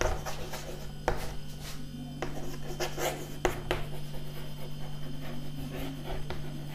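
Chalk scratching and tapping on a chalkboard as a sentence is written out by hand, in short irregular strokes.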